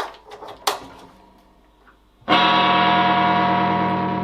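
Electric guitar played through a Roland JC-120 amplifier: a few sharp crackling pops in the first second, the amp's intermittent crackle fault, then about two seconds in a strummed chord rings out loud and slowly fades.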